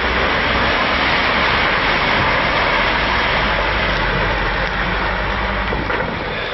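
KamAZ truck's V8 diesel engine running under load as it drives through a shallow river ford, with its wheels throwing up a steady rush of splashing water. The sound fades a little near the end as the truck pulls away.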